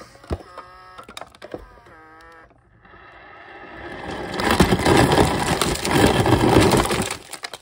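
Refrigerator door dispenser: the ice motor hums while a few ice cubes clatter into a plastic cup. Then a stream of water pours into the cup, growing louder, and cuts off suddenly near the end.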